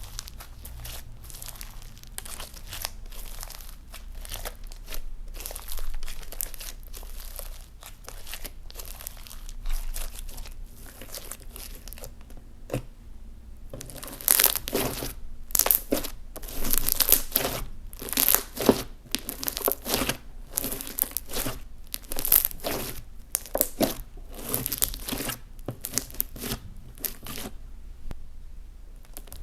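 Clear slime being kneaded and stretched by hand, making sticky crackling pops and squelches that grow louder and sharper about halfway through.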